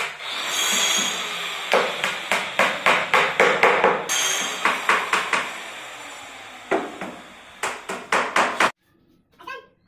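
Hammer striking wooden wall-panel boards to knock them into place, in quick repeated blows of about three a second. There are two runs with a short pause between them, and the blows stop sharply near the end.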